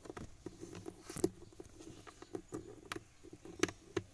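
Irregular light clicks and taps with a faint rustle from hands handling the Hilux glovebox's small black plastic lock pin close to the microphone, with a few sharper knocks among them.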